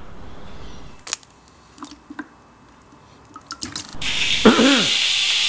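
A few small clicks and knocks, then about four seconds in a gush of running water with gurgling drips that lasts under two seconds.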